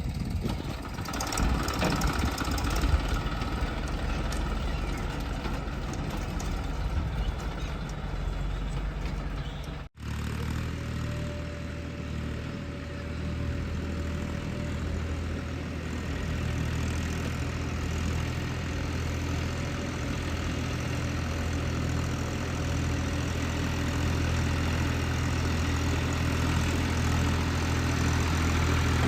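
Heavy diesel engine running steadily. About ten seconds in there is a brief break, after which it settles into a steady, even idle.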